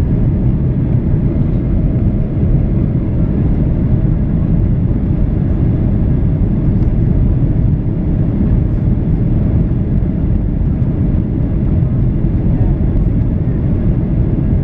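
Steady low rumble of a Boeing 737-800's CFM56-7B engines and the rushing air, heard inside the passenger cabin.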